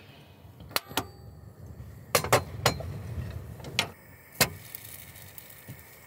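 A handful of sharp, irregular clicks and clinks of metal and glass at a built-in gas hob, as its glass lid is lifted, the burner is lit and a Ridgemonkey sandwich toaster pan is set on it.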